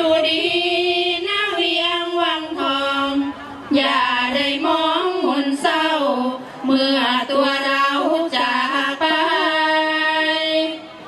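A woman singing sarabhanya, Thai Buddhist verse chant, solo and unaccompanied into a microphone. She sings in long phrases with held, wavering notes and short breaks between them.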